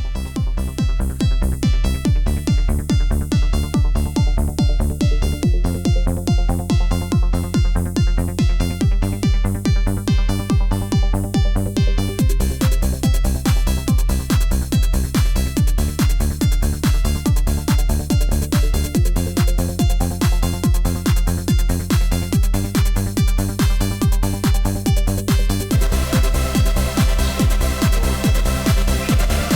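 Electronic dance music with a steady pulsing beat and a repeating bass line; more high percussion joins about twelve seconds in, and the track gets brighter near the end.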